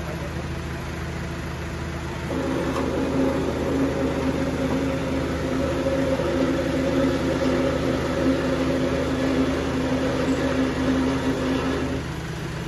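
Large band sawmill running with a steady low hum; about two seconds in, a louder steady drone joins it as the blade cuts through a huge log, and it drops away near the end.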